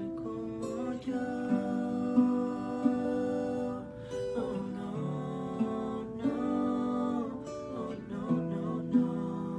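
Acoustic guitar strummed and picked, with male voices singing.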